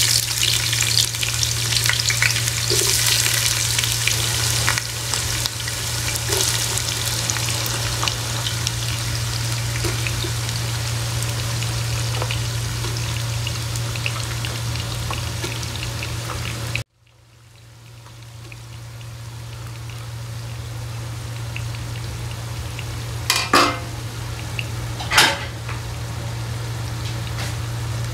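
Sliced onions sizzling as they fry in hot ghee and oil in a pan, over a steady low hum. About two-thirds of the way through the sound cuts out abruptly and then fades back in. Near the end there are two short knocks.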